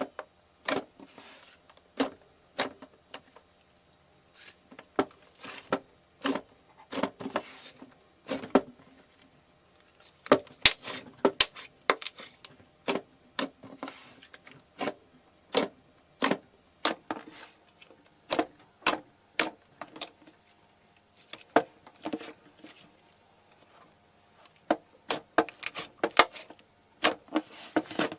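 Crunchy objects being crushed: irregular sharp cracks and crunches, some in quick clusters with short pauses between.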